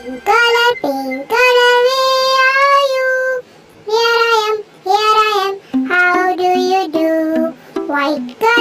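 A child's voice singing a nursery-rhyme colour song with musical accompaniment: short sung phrases, some notes held for about a second.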